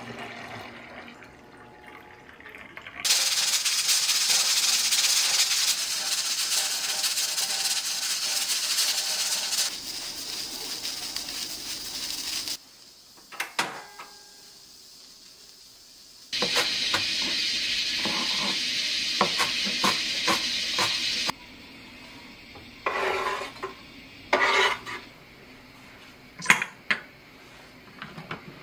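Stovetop pressure cooker hissing steam. The hiss breaks off for a quiet moment with a couple of clicks from the portable gas burner's knob being turned off, then comes back for about five seconds. Near the end come a few short metal clinks from the lid and handle.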